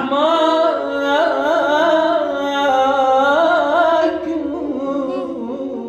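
A man singing in Arabic, drawing one word out over several long, ornamented notes that waver and slide in pitch, before moving to the next word about four seconds in.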